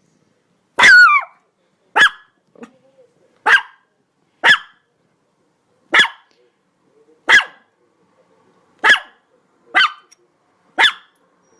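A dog barking: nine single, sharp barks spaced about a second apart, the first one longer and falling in pitch.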